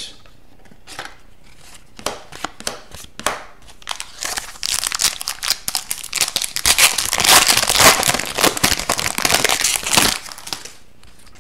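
Foil trading-card pack wrapper crinkling as it is torn open and the cards are pulled out. It builds to a dense crinkle from about four seconds in until near the end, after a few scattered light clicks.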